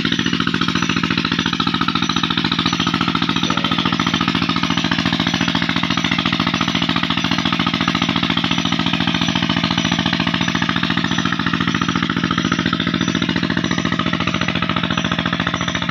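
Petter diesel engine running steadily as it drives a tubewell pump: a fast, even beat over a low, steady hum.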